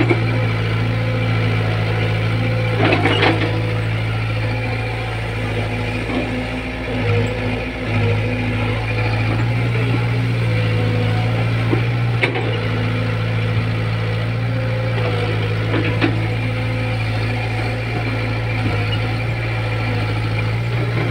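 Caterpillar E70B mini excavator's diesel engine running steadily as the machine digs, its note wavering briefly about seven seconds in. A few short, sharp knocks sound over it, about three, twelve and sixteen seconds in.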